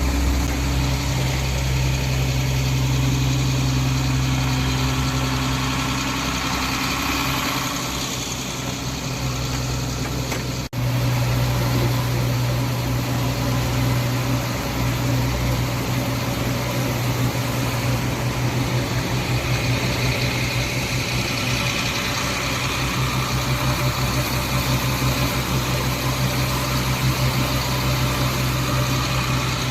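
A vehicle engine running steadily, a low, even drone that briefly cuts out about eleven seconds in and then carries on.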